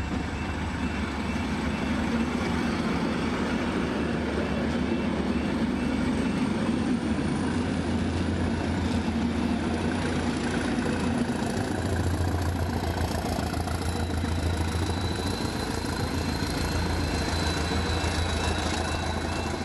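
Northern Ireland Railways Class 450 'Castle' diesel-electric multiple unit running under power as it departs the station and passes, its English Electric diesel engine giving a steady low drone that grows heavier as the train gathers speed. A thin high whine joins in about two-thirds of the way through.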